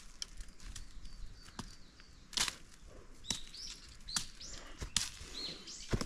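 A hiker's scattered footsteps and rustles on a brushy path, with a series of short, high bird chirps starting about halfway through.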